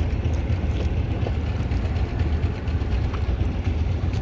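Fishing boat's engine running steadily, a low, even drone.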